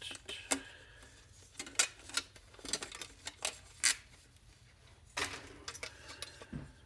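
Scattered metallic clinks, knocks and clatter of small scrap parts and hardware being handled and sorted during the teardown of an electronic control box, with sharp knocks about two and four seconds in.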